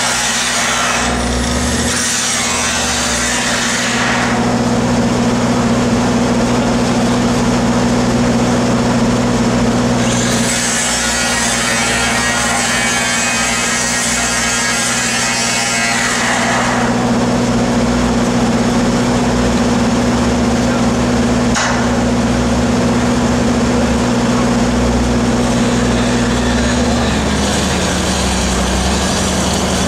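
Angle grinder cutting into the steel of a large pipeline joint, in a harsh gritty whine for the first few seconds and again for about six seconds in the middle, over the steady drone of an engine-driven welding machine. The engine note steps down to a lower speed near the end, and there is one sharp click.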